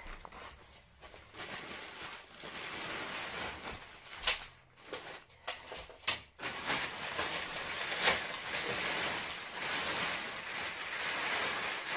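Thin plastic wrapping rustling and crinkling as it is pulled off a newly unrolled memory-foam hybrid mattress, with a few sharp crackles in the middle and a louder one about two-thirds of the way through.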